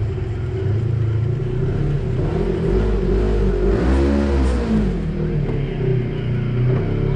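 Polaris RZR side-by-side engine running while driving a rough dirt trail. About halfway through it revs up and then back down.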